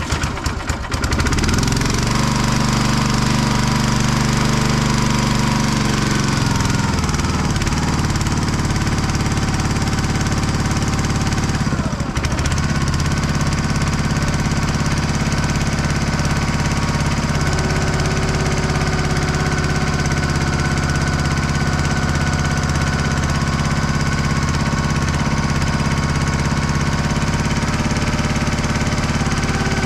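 Log splitter's engine running steadily and loudly, its pitch shifting a couple of times.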